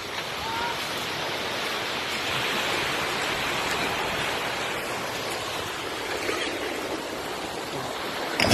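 Steady rushing hiss of surf washing on a beach, swelling slightly a few seconds in.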